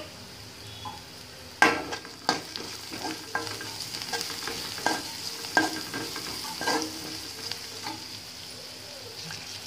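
Chopped vegetables frying in oil in an aluminium kadai, with a steady sizzle, while a steel spoon stirs them. From about one and a half seconds in, the spoon scrapes and knocks against the pan again and again; the first knock is the loudest.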